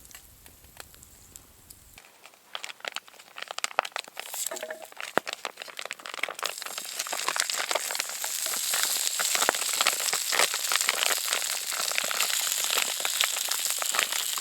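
Food frying in a pan over a campfire: scattered crackles start about two seconds in and build into a steady, dense sizzle.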